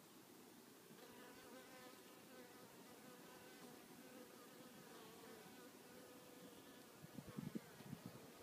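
Faint buzzing of honeybees flying at the hive entrance: a thin, steady hum, with a few soft low bumps near the end.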